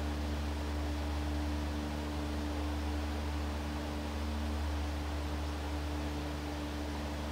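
Steady low electrical hum with a few held higher tones over an even hiss, unchanging throughout, with no distinct sounds from the drawing.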